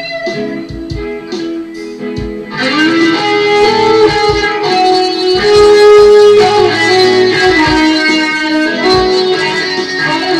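Electric guitar playing a lead melody of sustained single notes, softer for the first couple of seconds, then louder from about two and a half seconds in, where a note is bent upward.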